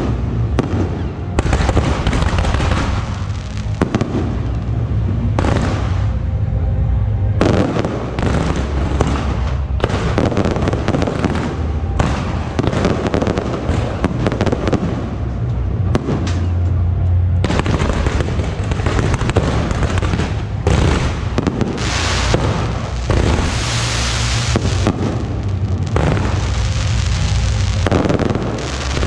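Fireworks barrage: rapid, dense crackling and bursting of shells and firecrackers over a continuous low rumble, going on without a break.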